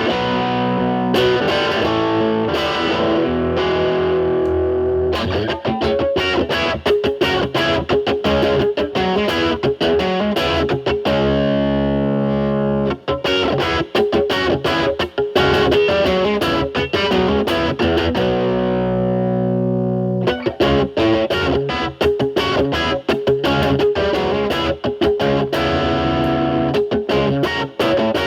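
Electric guitar, a Telecaster with single-coil pickups, played through a Fender Pugilist dual-gain distortion pedal in blend mode into a Marshall Valvestate amp's clean channel: fast distorted single-note lines and riffs, with two held chords ringing out and fading, one near the middle and one about two-thirds of the way in.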